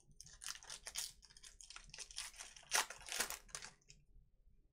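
Wrapper of a 2020 Panini Donruss Elite Football hobby pack being torn open and crinkled by hand: a quick run of rustling crackles that is loudest about three seconds in and stops shortly before the end.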